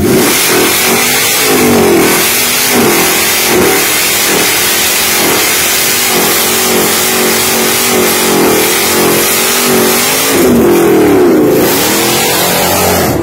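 Shelby GT500 Mustang's supercharged V8 revving up and down over and over during a burnout, its rear tires spinning on the pavement in a loud hiss.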